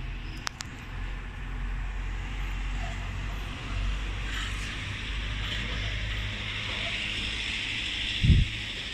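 Road vehicle noise: a steady low rumble with a hiss over it, as of a car running, with a couple of sharp clicks about half a second in and a loud low thump about eight seconds in.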